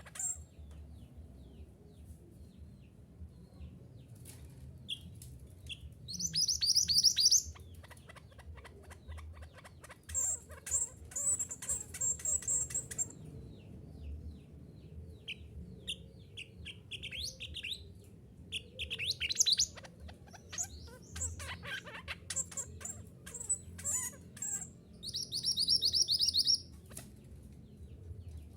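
Mantenan gunung (mountain minivet) singing: several bursts of rapid, high-pitched trilling chirps with short gaps between them, as played for songbird training.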